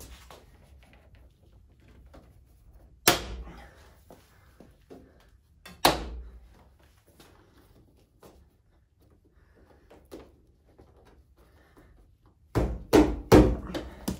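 Chrome trim molding being pushed and snapped into its clips along a 1977 Chevy Camaro's door and fender edge, giving sharp knocks with a short ring. There is one about three seconds in, another about three seconds later, and a quick run of four or five near the end.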